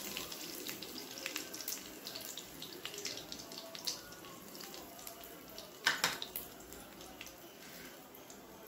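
Hot oil sizzling faintly in a kadai with a tempering of mustard seeds, urad dal, dried red chilli, curry leaves and asafoetida powder, the mustard seeds spluttering in scattered small pops. The sizzle slowly dies down, with a louder crackle about six seconds in.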